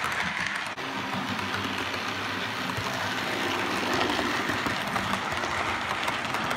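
OO gauge model train running steadily on the track: a Bachmann Class 24 diesel hauling Hornby BR Mk1 coaches, a continuous rumble of wheels on rail with a low motor hum.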